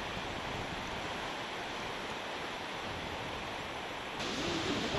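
Steady wash of ocean surf with wind on the microphone. About four seconds in, a louder whooshing sound builds and sweeps upward.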